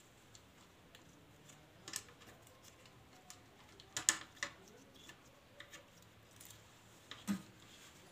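Scattered clicks and light knocks of small metal engine parts and hand tools being handled, loudest about four seconds in, with faint room noise between them.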